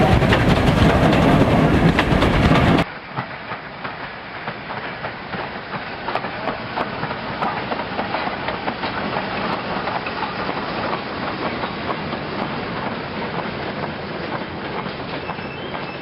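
Model train running on a model railway: for about the first three seconds a louder, fuller running sound as a model steam locomotive passes. Then, after a sudden cut, a quieter steady rolling of model goods wagons with fine rapid clicks as the wheels cross the rail joints.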